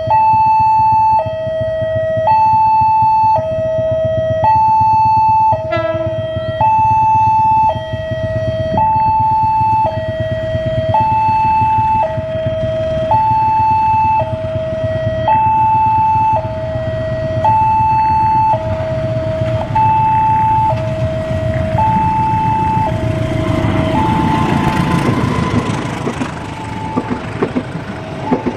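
Railway level-crossing warning alarm sounding a two-tone electronic signal, alternating high and low about once a second, over the low rumble of an approaching diesel train. Near the end the alarm is drowned out as the train passes, its wheels clattering over the rail joints.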